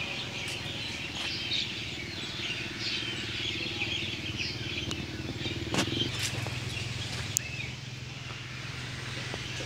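Birds chirping busily over a steady low engine hum, with two sharp clicks about two-thirds of the way through.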